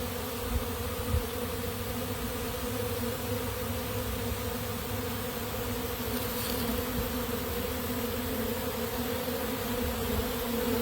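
A honey bee swarm on the wing, many bees flying close together in a steady, droning hum, as the swarm moves out of the tree and into a bait hive.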